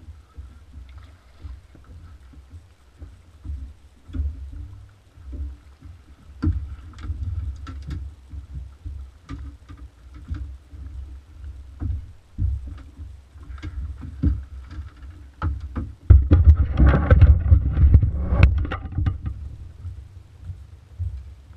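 Small fishing boat with a steady low rumble, scattered knocks and clatters on the hull and gear. About 16 seconds in comes a louder stretch of knocking and rustling lasting about three seconds, as a freshly landed snapper is handled in the landing net.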